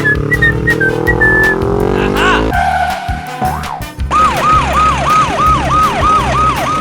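Siren sound effect: a high tone that rises, holds and falls, over and over, about three times a second through the second half. Before it comes a short falling run of beeping notes over a rising hum, which cuts off about two and a half seconds in.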